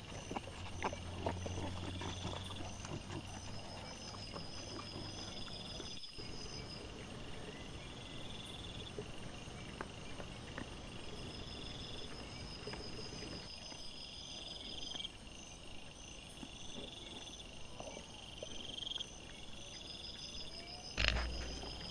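Night insects chirping in a steady, regularly pulsing pattern, over the rustling and crackling of wild boar and piglets rooting in the leaf litter close by. There is one loud bump near the end.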